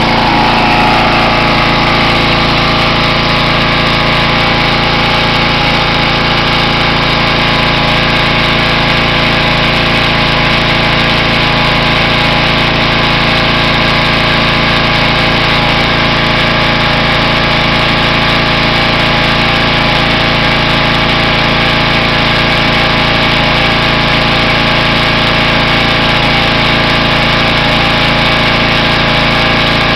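Simoniz 2350 PSI gas pressure washer's small engine running at a steady speed, just started after sitting about five months over the winter.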